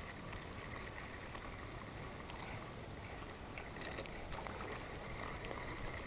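Spinning reel being cranked, a faint steady whirr, as a small largemouth bass is reeled in, over the low wash of creek water.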